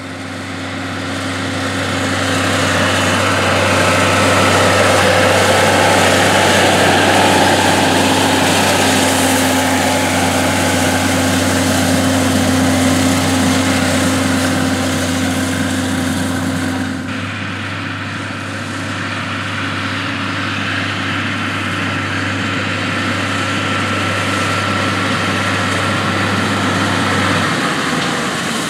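Minneapolis-Moline G-1050 tractor's six-cylinder engine running steadily as it pulls a wheel hay rake, with a shift in its sound a little past halfway.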